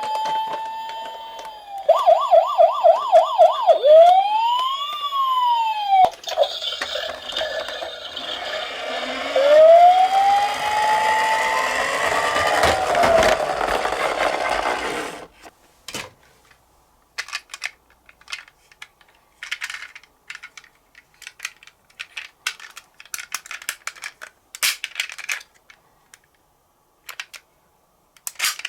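Toy police car's electronic siren, running through a held wail, a fast warbling yelp about three times a second, and rising-and-falling wails, with a rough rushing noise under it from about six seconds in. The siren cuts off suddenly about halfway through. After that come only scattered light clicks and rattles.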